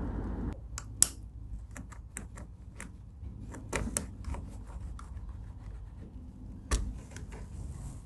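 A knife cutting the overhanging end of a garage door's bottom seal gasket: irregular sharp clicks and short scrapes, bunched in the first half, with a heavier knock near the end.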